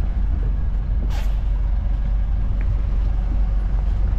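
Motor cruiser's engines running at low speed, a steady low rumble, with a short hissing sweep about a second in.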